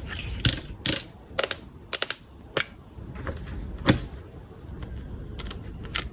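Irregular sharp clicks and taps of small items and packaging being handled and set down.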